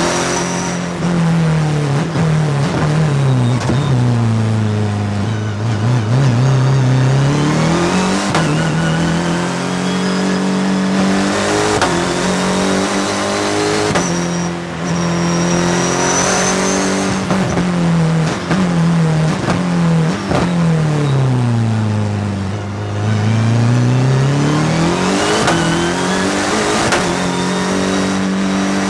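BMW Motorsport P63 twin-turbo V8 of the E36 M3 hill-climb car, heard from a roof camera, running hard under full throttle, its pitch climbing and stepping through gear changes. Twice the pitch sinks and climbs back up as the car slows and accelerates again.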